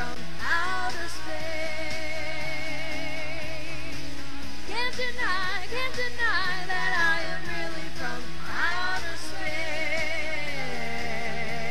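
A pop song playing, with a singing voice holding wavering notes over a steady instrumental backing.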